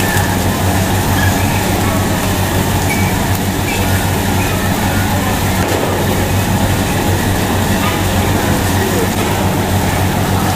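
A steady mechanical drone with a constant low hum, unbroken throughout.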